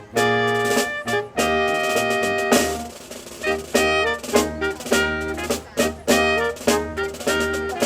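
A brass band with drums playing a Christmas carol: trumpets and trombones in short, punchy chords over a steady drum beat.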